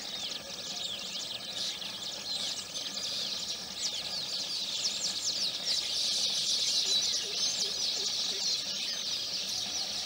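Baya weavers chattering around their colony of hanging nests: a dense, continuous chorus of short, high chirps and quick sweeps that gets busier and slightly louder about halfway through.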